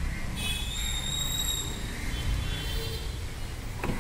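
Steady low rumble of a handheld phone being carried, with thin high squeaky tones twice, and a sharp click just before the end as the tailgate latch is released.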